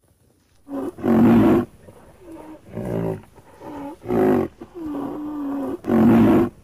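A series of pitched animal calls, about seven in quick succession, the loudest about a second in, about four seconds in and near the end, with one longer call held at a steady pitch around five seconds in.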